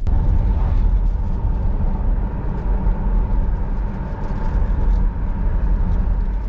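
Steady low rumble of a car driving, with road and engine noise.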